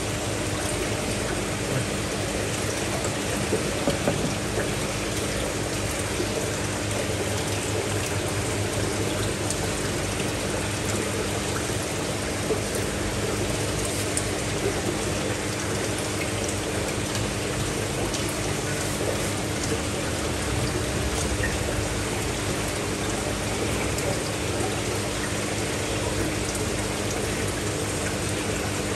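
Steady splashing of running water, with a steady low hum underneath.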